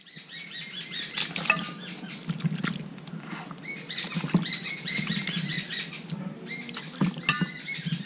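Many small birds chirping: quick, high, repeated chirps and peeps crowding over one another, with a few sharp clicks, the loudest near the end.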